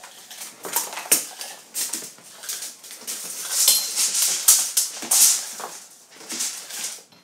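Irregular rustling, scraping and clattering handling noise from a wet-and-dry vacuum's electrical cord being unwound and stretched out, loudest in the middle.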